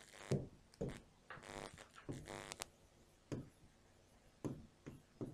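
Faint, scattered taps and strokes of a stylus writing on an interactive whiteboard, with a brief pitched sound about one and a half seconds in.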